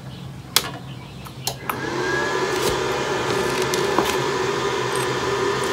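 Two clicks as the Powerhouse 3-in-1 inverter welding machine is switched on, then its cooling fan spins up, its pitch rising briefly before it settles into a steady whir.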